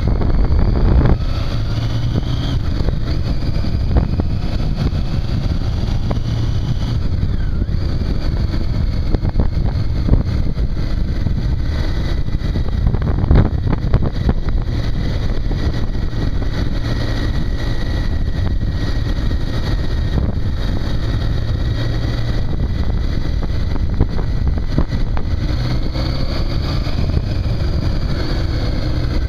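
Triumph Tiger 800's three-cylinder engine running steadily while the motorcycle is ridden, picked up by a handlebar-mounted camera, with a heavy rumble of wind on the microphone.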